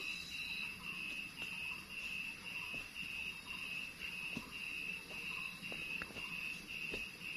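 An insect calling in a steady rhythm of high pulses, about two a second, with faint footsteps on the leaf-litter trail.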